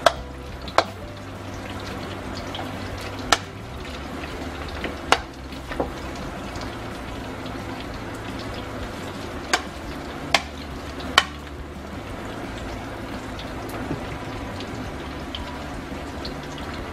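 Slices of frying cheese sizzling steadily in hot oil in a skillet, with about seven sharp clicks scattered through the first two-thirds.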